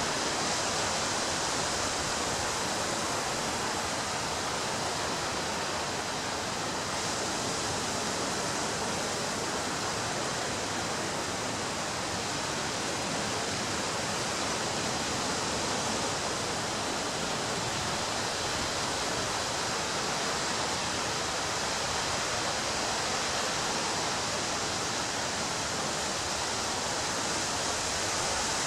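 Ocean surf on a beach: a steady, even rush of noise with no distinct wave crashes standing out.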